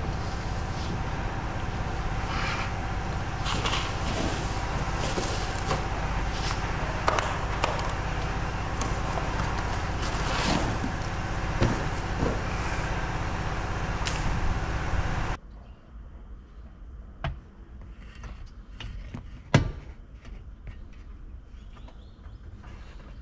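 Mitsubishi Delica van's engine running steadily, with scattered clicks and knocks over it; about fifteen seconds in the running sound cuts off suddenly, leaving only quieter, occasional clicks and knocks.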